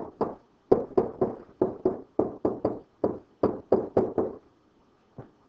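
A stylus tapping and clicking on a pen-input writing surface while a line of an equation is written by hand, in a quick uneven run of about four or five taps a second that stops about four and a half seconds in.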